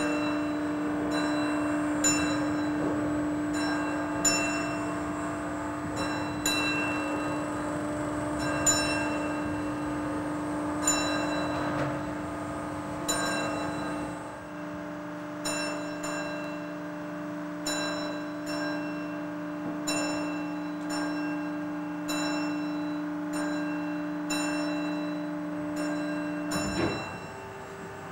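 A bell struck over and over at a regular pace, each stroke ringing on, over a steady hum. The strokes come about every two seconds, then faster from about halfway, and the hum stops shortly before the end.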